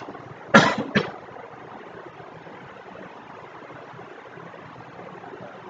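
Steady background hiss of a voice recording, broken about half a second in by two short, loud noises close together.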